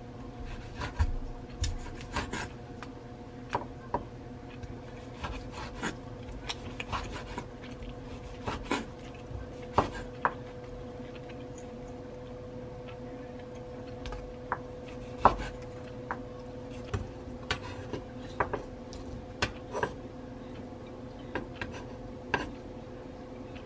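Chef's knife slicing grilled steak on a wooden cutting board, with irregular sharp knocks of the blade and metal tongs on the board. A steady low hum runs underneath.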